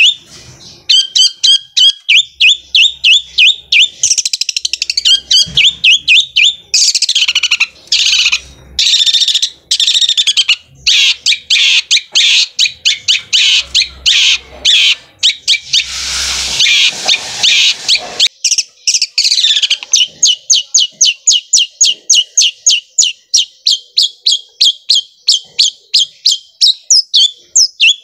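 Long-tailed shrike (cendet) singing a fast rolling chatter of sharp repeated notes, about five a second, described as sounding like a sewing machine. For much of the middle the song becomes denser and more jumbled and varied before settling back into the even machine-gun roll.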